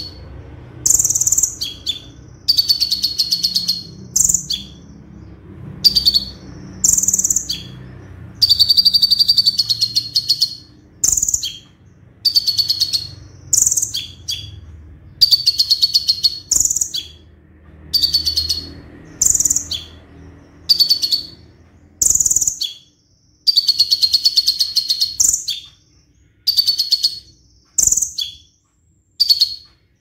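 Konin, a caged sunbird, singing its rapid-fire 'roll tembak' song: high, fast rattling trills in short bursts about once a second, some bursts stretched to a second or two.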